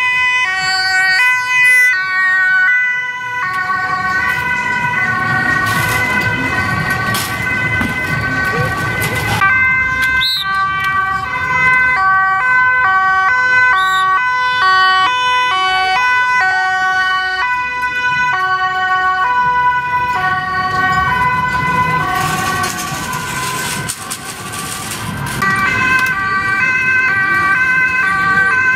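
Dutch emergency-vehicle two-tone sirens, from an ambulance and from police vehicles, stepping back and forth between a high and a low tone. Often two sirens sound at once and overlap.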